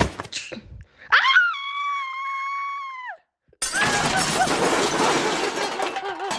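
A sharp knock, then a high scream held steady for about two seconds that drops away at the end, then, after a short silence, a long crash of shattering glass with pieces tinkling.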